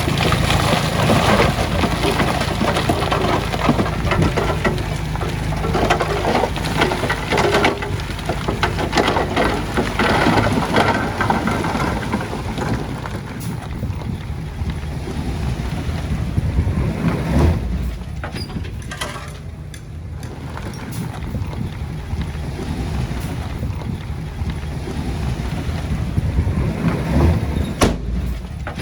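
Heavy earthmoving machine's diesel engine running steadily under load, with clatter of stone and dirt. It is louder and busier for the first dozen seconds, then eases, with a few sharp knocks near the end.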